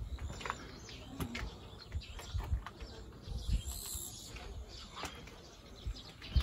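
Footsteps of someone walking through a gateway: soft, irregular low thumps with scattered small clicks.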